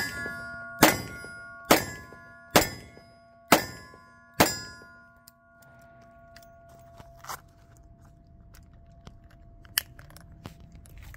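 Six quick shots from a Smith & Wesson 686 .357 revolver, about a second apart, the first right at the start, each hit setting steel targets ringing with a clear metallic ding that hangs on for a few seconds after the last shot. A few light clicks and a small knock follow in the lull.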